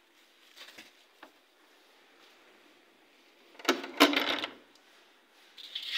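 A short, loud clatter of hard objects knocking and rattling together a little over halfway through, with a few faint knocks before it.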